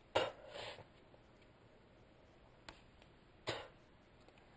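Short breathy mouth noises, like puffs and grunts, as thin wire insulation is stripped with the teeth. Two bursts come at the start, a faint click follows, and another burst comes about three and a half seconds in.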